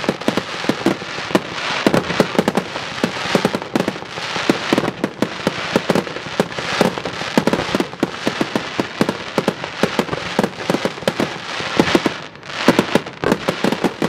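Fireworks going off: a dense, continuous run of bangs and crackling pops, with a short lull about twelve seconds in.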